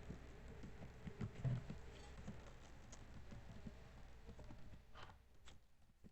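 Faint computer keyboard typing: soft, irregular key clicks, with two sharper clicks about five seconds in, after which it falls quiet.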